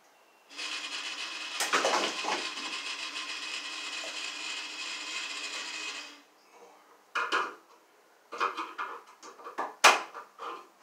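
Electrical cable being pulled through holes bored in wooden wall studs: a steady scraping rasp that starts suddenly about half a second in and stops about six seconds in. Then scattered clicks and knocks as the cable is handled at the electrical box, the sharpest near the end.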